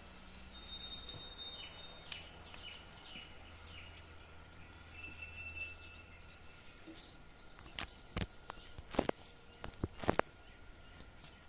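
Small birds chirping in short high calls, with a handful of sharp clicks and knocks close together near the end.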